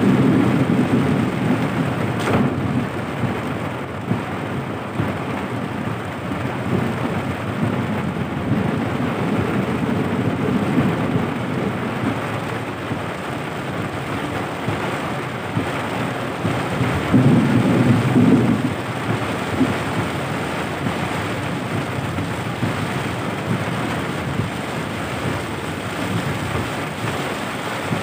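Heavy rain drumming on a moving car's roof and windshield, heard inside the cabin, over the hiss of tyres on a flooded road. A deep rumble swells at the start and again about two-thirds of the way in, and there is a single sharp click a couple of seconds in.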